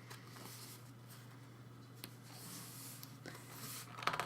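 Faint rustling and sliding of paper and cardboard album packaging being handled, with a few small clicks near the end.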